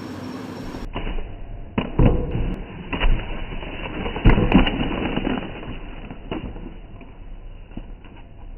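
Biscuit packets being handled and opened: rustling of packaging with a series of knocks and clicks, the loudest about two, three and four seconds in.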